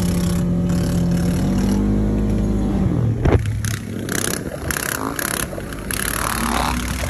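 Engine running at a steady pitch while driving, rising a little about two seconds in. A sharp knock comes about three seconds in, after which gusts of wind noise break up the sound.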